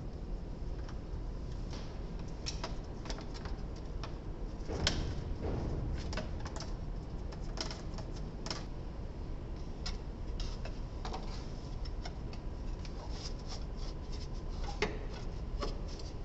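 Irregular metallic clicks and taps of a socket wrench on a universal joint and extension working bolts among engine-bay parts, with a louder knock about five seconds in and another near the end.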